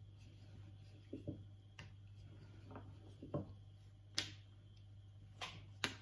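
Scattered light clicks and knocks, about eight in all, over a steady low hum, with the sharpest ones about four seconds in and near the end.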